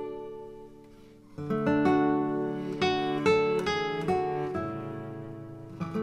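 Background music of plucked acoustic guitar: single notes ringing and dying away, a brief lull about a second in, then a new phrase of picked notes.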